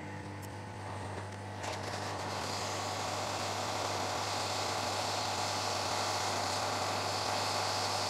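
Handheld hot-air heat gun blowing: a steady fan hum under an airy hiss that builds over the first two or three seconds, then holds steady. It is heating the solder of a micro USB charging port to desolder it from a circuit board.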